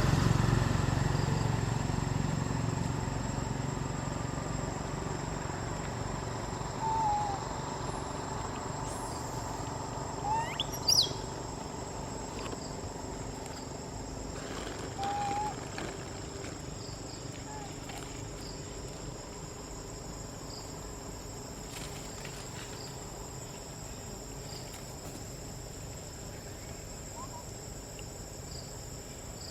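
Steady, high-pitched drone of insects such as crickets, with a few short chirping calls about a third and half of the way in. A low engine sound fades away over the first few seconds.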